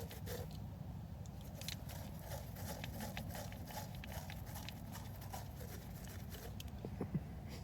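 Faint small clicks and rustles of a phone and charger being handled, over a low steady background rumble.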